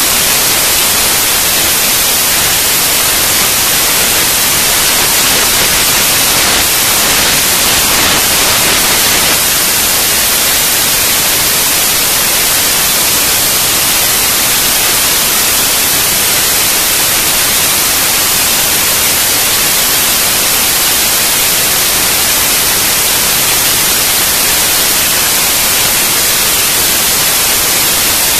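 Loud, steady static hiss like white noise, with no other sound standing out.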